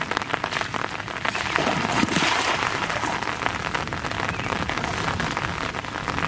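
Heavy rain hissing steadily on floodwater, with a louder splashing rush about one and a half to two and a half seconds in as a thrown cast net lands on the water.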